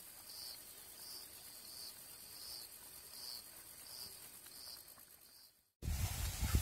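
Crickets chirping: a regular chirp about every 0.7 seconds over a steady high insect drone. Near the end it cuts off abruptly and a much louder noise with a low rumble takes over.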